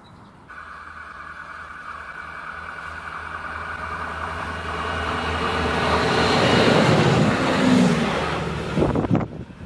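Stadler Regio-Shuttle RS1 diesel railcar approaching and passing: its engine and running noise grow steadily louder, peak as it goes by about seven to eight seconds in with a drop in pitch, then cut off suddenly near the end.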